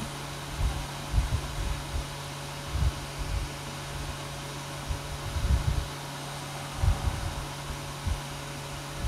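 Whiteboard marker writing strokes on a whiteboard, heard as irregular low bumps and rubbing about once a second, over a steady low hum.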